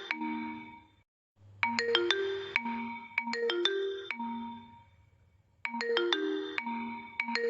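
Vivo phone ringtone: a short melody of struck, marimba-like notes that repeats about every four seconds. There are brief gaps between repeats, about a second in and near the five-second mark.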